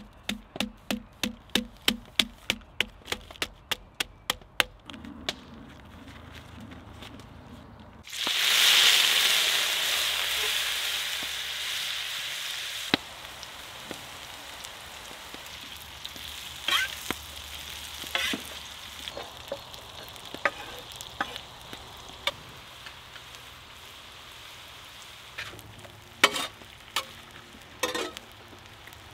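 A wooden mallet taps quickly on a log through a sheet of paper, about fifteen knocks in some five seconds. About eight seconds in, cut potatoes go onto a hot black steel griddle pan with a sudden loud sizzle. The sizzle slowly dies down to steady frying, with a few sharp clicks and scrapes of stirring near the end.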